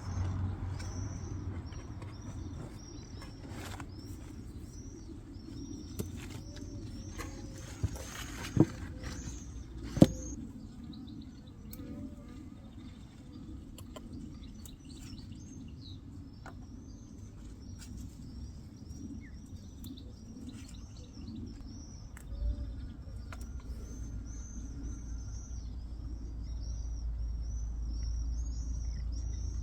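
Small birds chirping, a quick run of short high chirps repeating several times a second, over a low outdoor rumble. A few sharp knocks stand out a few seconds in, the loudest two around the middle.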